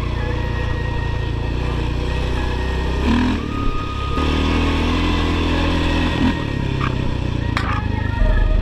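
Engine of a handlebar-steered off-road vehicle running under way on a dirt trail, its note changing about three seconds in and again about six seconds in as the throttle shifts.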